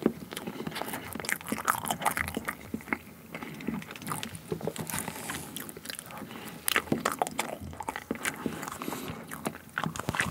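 Close-miked eating sounds of a spoonful of soft milk cream cake being chewed: wet mouth noises with many small, quick clicks, coming in clusters.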